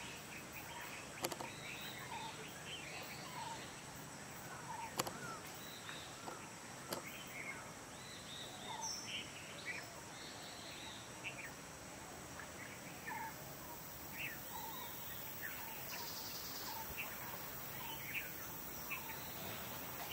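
Many birds chirping and calling at once in short, repeated notes over a steady background hiss. A few sharp clicks stand out, the loudest about five seconds in.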